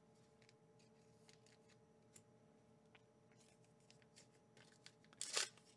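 Quiet handling of Pokémon trading cards and their promo packs: faint scattered clicks and rustles, then a brief, louder crackle near the end.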